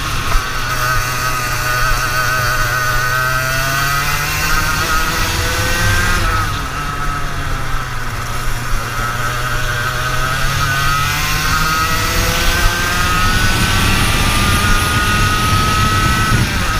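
Racing kart engine at speed, heard from the driver's seat. Its pitch wavers through the turns, drops about six seconds in as the kart slows for a bend, then climbs steadily as the kart accelerates out onto the straight.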